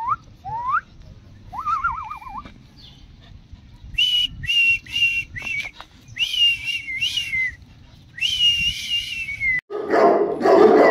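A few short rising whistles, then a dog whining in a run of short high-pitched whines, the last one longer and falling in pitch. Near the end a louder, rougher noise comes in.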